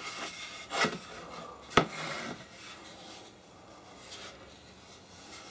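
Scraping and rubbing by hand on the bare wood of an antique machinist's tool chest: a scraping stroke about a second in, a sharp click just under two seconds in with a short scrape after it, then fainter rubbing.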